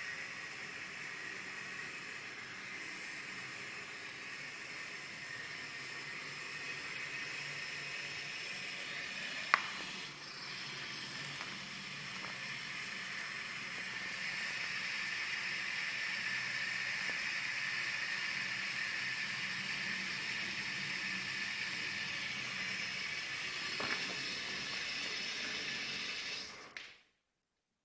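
A steady hiss that grows a little louder about halfway through, with a sharp click about a third of the way in and a fainter one near the end. The hiss cuts off abruptly just before the end.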